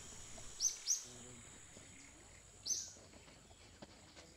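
Short, sharp bird chirps, two in quick succession and a third about two seconds later, over a steady high-pitched insect drone.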